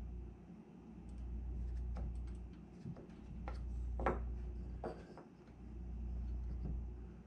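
Light clicks and taps of a thin aluminium rib and a small wooden angle block being handled on a workbench, the sharpest a clink about four seconds in. Under them runs a low rumble that swells and fades about every two seconds.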